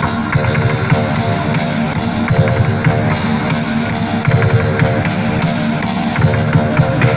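Loud live music: layered tones held steadily, with dense sharp clicking running over them.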